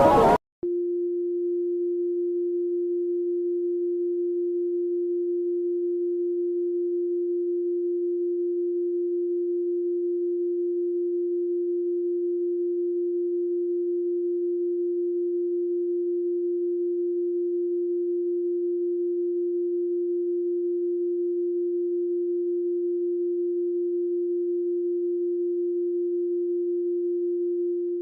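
A single steady electronic sine tone at one unchanging pitch, with no overtones, starting about half a second in just after music cuts off and holding at a constant level.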